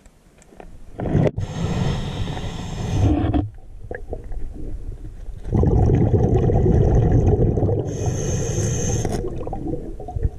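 Scuba diver breathing underwater through a regulator: long stretches of gurgling exhaled bubbles, with a hiss carrying a thin high whistle near the end.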